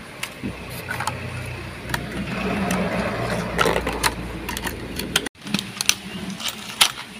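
Hands handling plastic blister packs and a cardboard box: rustling with sharp plastic clicks, heaviest in the middle, over a steady low hum. The sound cuts out abruptly for a moment about five seconds in.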